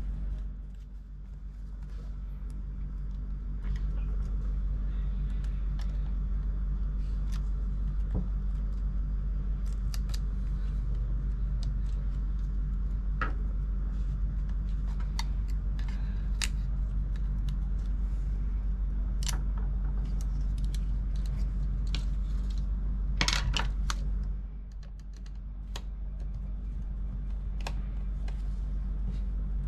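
Scattered small clicks and taps of tools and parts being handled while a MacBook Pro is taken apart, over a steady low hum. A quick run of louder clicks comes about three-quarters of the way through.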